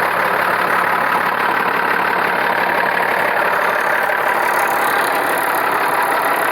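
Mercedes-Benz OM 352 A six-cylinder diesel engine in a Ford F-600 truck, idling steadily, running without its turbocharger fitted.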